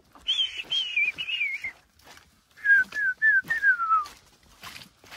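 A herder whistling to drive cattle: a run of four short, wavering whistled notes, then a lower run of four ending in a longer falling note.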